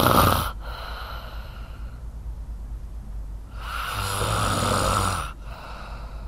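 A person snoring: a low buzzing snore dies away about half a second in, and a second one of about a second and a half comes past the middle, with a quieter stretch between.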